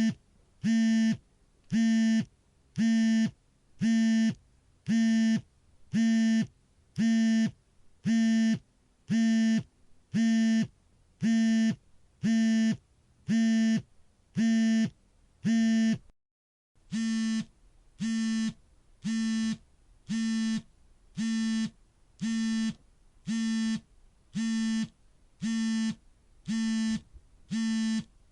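Smartphone vibration motor buzzing as an alarm in regular pulses, about one a second, each lasting roughly half a second. The pattern breaks off briefly past the middle and resumes slightly quieter.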